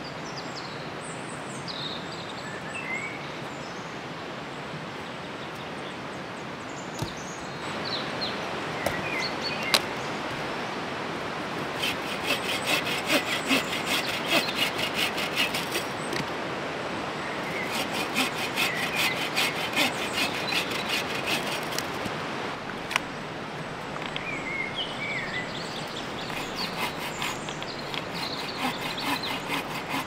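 Steady rush of a river with short bird chirps. Twice, for about four seconds each, a fast rasping like sawing or scraping breaks in.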